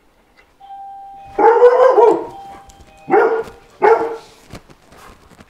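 A black-and-white Border Collie cross barking at the gate: a short run of barks about a second and a half in, then two more single barks, the alert barking of a fearful dog at someone arriving. Just before the barks a brief steady electronic tone sounds, like a gate bell.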